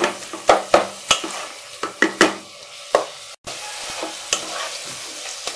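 A cooking utensil knocking and scraping against a frying pan as water lily stems are mashed and stirred, over a steady sizzle from the frying. The knocks come quickly in the first three seconds and thin out after that.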